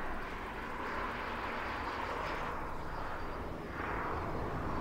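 BMW 5 Series sedan driving past at speed: rushing tyre and engine noise that swells and eases as the car goes by, rising again near the end.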